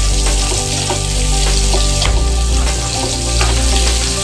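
Sliced onions and garlic sizzling in hot oil in a nonstick frying pan, stirred with a wooden spatula that scrapes and taps the pan now and then. Background music with a steady bass line plays underneath.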